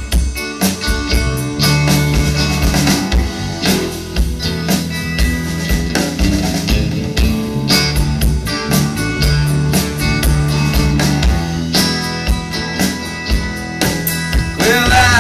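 Live rock band playing an instrumental passage: electric guitars, bass guitar and a drum kit keeping a steady beat.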